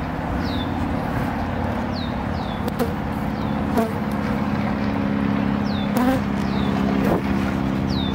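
Honeybees from an opened nuc and hive buzzing in a dense, steady hum. Short high falling chirps repeat in the background, and a few light knocks come from frames being handled.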